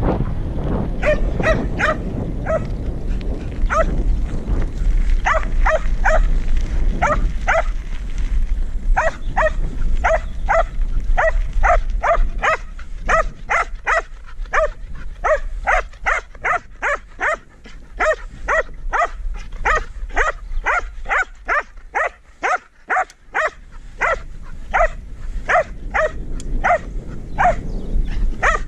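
Border collie barking over and over, about two barks a second, with low wind rumble on the microphone during the first several seconds.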